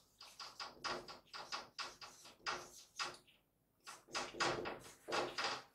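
Dry-erase marker writing on a whiteboard: a rapid run of short strokes as the letters are written, with a brief pause a little past the middle.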